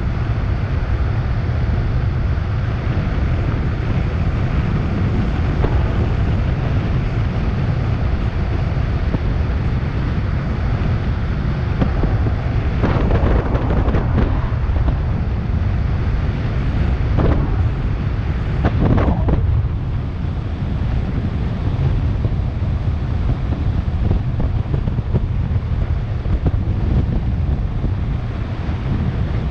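Loud, steady wind buffeting on the microphone of a camera riding on a bicycle descending a highway at high speed. There are a few brief louder swells about halfway through.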